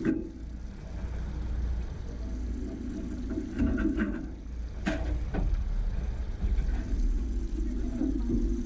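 Boat's outboard motor running steadily at trolling speed, a low rumble carried through the hull, with a few light knocks scattered through it.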